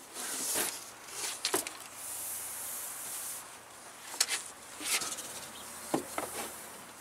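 Cardboard scraping and rustling as a framed solar panel is slid out of its cardboard box, with several sharp knocks as the panel is handled and set down.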